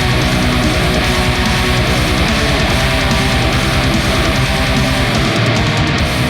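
Heavy metal music with distorted electric guitar over a fast, steady low pulse. The low pulse drops out about five seconds in.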